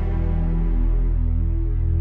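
Slow background music of long held chords, with a chord change about a second in.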